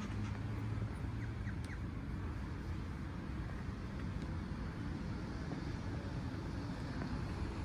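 Steady street traffic noise, with a vehicle's low engine hum that fades after about a second.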